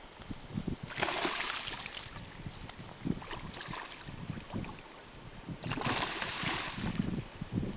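Beaver caught on a trap cable thrashing in the water, splashing twice: about a second in and again near six seconds, each splash lasting about a second. Low rumbling runs underneath.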